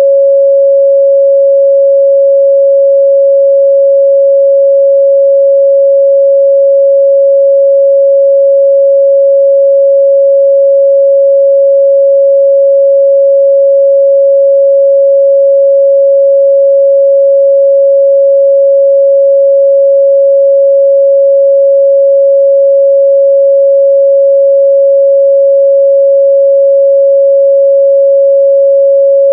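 A pure 553 Hz sine-wave test tone, one steady unwavering pitch with no overtones, held at a constant loud level.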